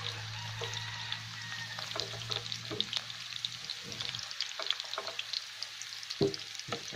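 Sliced onion, garlic and ginger frying in hot oil, sizzling and crackling, while a metal spatula stirs and scoops them out of a granite-coated pan. Two sharp spatula knocks come near the end.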